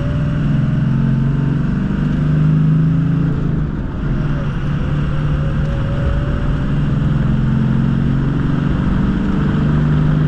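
Ford 6.0 Power Stroke V8 turbo-diesel running on the road, a steady low engine drone that eases off briefly about four seconds in and then picks back up. The engine has a freshly rebuilt VGT turbo that is making boost with no turbo flutter.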